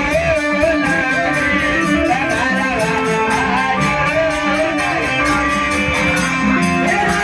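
Instrumental passage of a Bhojpuri folk song: a wavering melody over plucked strings and a steady beat.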